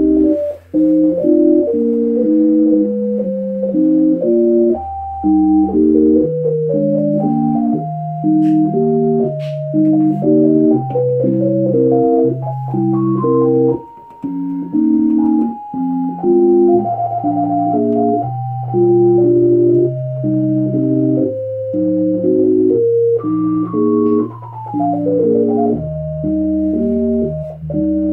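Yamaha A4000 sampler playing back a keyboard piece in an organ-like tone: sustained chords over a stepping bass line, with a brief pause about fourteen seconds in and a quick falling run near the end.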